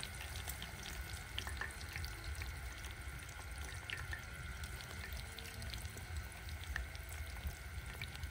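Food frying in hot oil in a pan: a steady sizzling hiss with scattered small crackles, over a low rumble.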